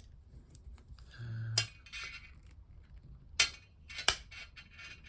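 Small metal clicks and clinks from handling a modified Victorinox Swiss Army multitool's bit driver, with a few sharp clicks, the loudest about one and a half, three and a half and four seconds in.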